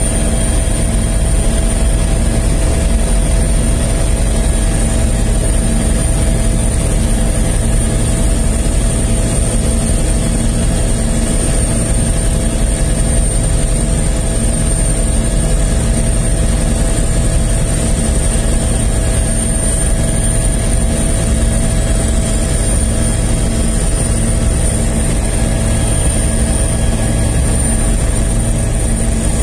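Helicopter turbine engine and rotor running steadily, heard from on board: a constant high whine over a low drone.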